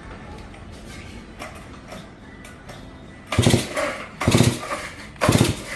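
Large vintage gear-drive chainsaw being pull-started: three hard pulls about a second apart, starting a little past halfway. Each pull turns the engine over in a quick burst of rapid pulses, and it does not catch.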